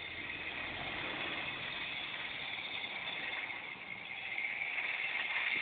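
Tyco HO-scale model locomotive running around the track, its small electric motor whirring and its wheels running on the rails in a steady hiss that grows louder about four seconds in.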